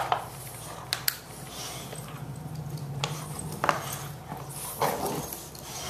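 Boxer dogs play-fighting: low growling with a few short barks, and a couple of sharp clicks about a second in.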